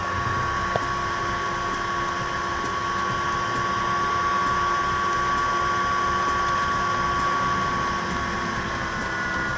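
Small blower fan of a HeaterMeter BBQ temperature controller running steadily in manual mode at raised speed, a steady high-pitched whine over a rush of air.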